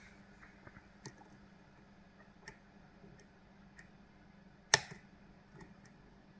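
Faint, irregular metallic clicks of a lock pick working the pins inside a Kale Kilit 164 BNE lock cylinder, with one sharper, louder click about three quarters of the way through.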